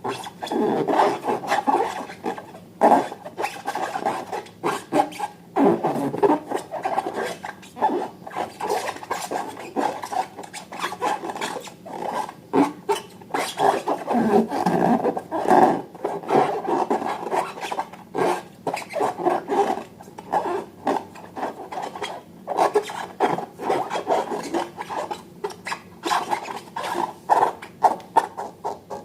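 Slime being squished and worked, a dense run of quick, irregular squelches and crackles.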